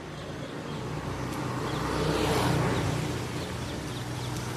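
A motor vehicle driving past, its engine and tyre noise growing to a peak about two seconds in and then fading.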